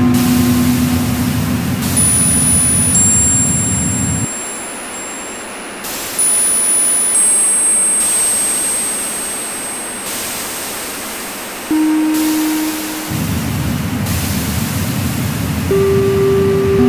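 Electronic noise music: layers of hiss and low rumble that cut in and out abruptly every few seconds. The low layer drops away about four seconds in and returns near the end. Steady electronic tones, some high-pitched and some low, enter and stop on their own.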